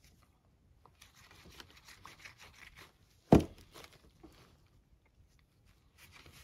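Faint rustling and crinkling of soft brown mulberry paper being handled and pressed onto a journal page, with one short knock a little over three seconds in.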